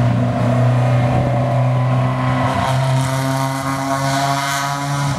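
Rally car engine running at steady revs, its pitch holding nearly level.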